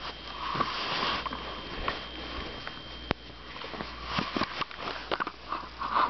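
Short sniffing puffs and rustling close to the microphone, mixed with a few handling knocks and clicks, the sharpest about three seconds in.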